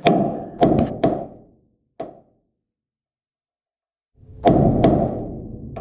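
Hammer blows on steel, driving the ground-off rivets out of a Chevrolet C10's frame hanger mounts: four sharp strikes in quick succession, a break of dead silence, then two more strikes with a ringing tail.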